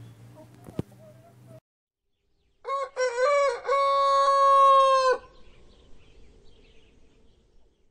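Faint hen clucking, then after a short silence a rooster crows once, loudly: a few broken notes followed by one long held note that stops abruptly.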